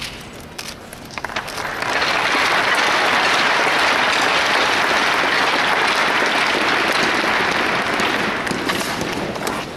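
Arena crowd applauding after a ceremonial puck drop, swelling in about two seconds in, holding steady, and dying away near the end.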